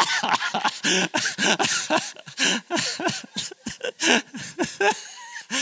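A man laughing hard close to the microphone, in quick repeated bursts that rise and fall in pitch.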